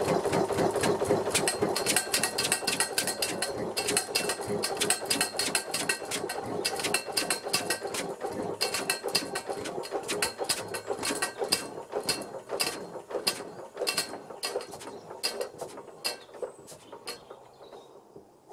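Steel dragon flapper lid on a Bamford SD3 stationary engine's exhaust pipe tapping rapidly and irregularly against the pipe top in 'woodpecker mode' as the shut-down engine runs down. The metallic ticks and the engine's running sound fade and thin out, and stop near the end.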